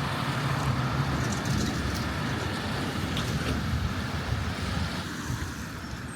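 Steady road and engine noise of a vehicle on the move, getting a little quieter near the end.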